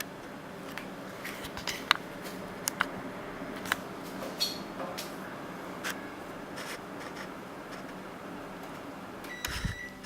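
Panasonic CS-S10PKP inverter air conditioner: a steady hiss with scattered sharp clicks, then a short electronic beep near the end.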